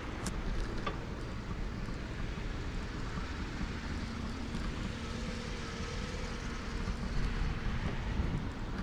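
Steady low rumbling noise of wind and movement on a moving camera's microphone, with a few faint clicks near the start and a faint steady hum for a few seconds in the middle.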